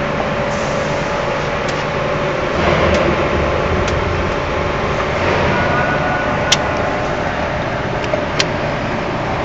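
Wire-cut EDM machine running with a steady mechanical hum and whir, with a couple of sharp clicks near the end.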